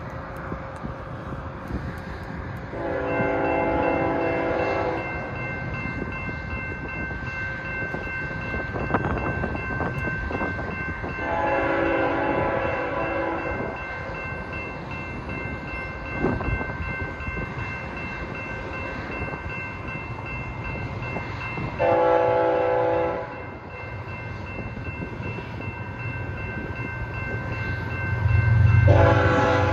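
A BNSF locomotive's forward-facing Nathan K5HL five-chime air horn sounding the grade-crossing signal, long, long, short, long, as the train approaches. A grade-crossing warning bell rings steadily underneath from a few seconds in, and the locomotive's low rumble grows near the end.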